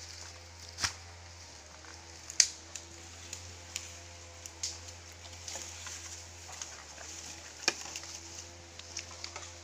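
Footsteps and rustling through leafy forest undergrowth, with scattered sharp snaps and cracks of twigs and stems; the sharpest crack comes about two and a half seconds in.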